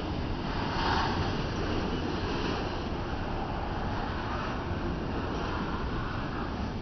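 Union Pacific double-stack container train rolling past, a steady rumble and rush of wheels on rail, briefly louder about a second in.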